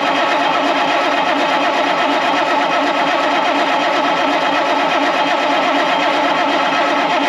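Starter motor cranking a cold Caterpillar diesel engine: a steady, fast, even turning-over that does not catch or fire. The owner reckons it won't run until it builds oil pressure.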